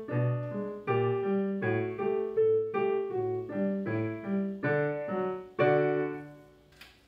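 Digital piano played by a child: detached notes and chords in a steady dance rhythm, ending on a loud final chord about five and a half seconds in that dies away.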